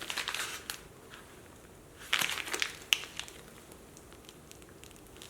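Meal-kit ingredient packaging crinkling and rustling as it is handled, in two short spells, the second about two seconds in and ending with a sharp click.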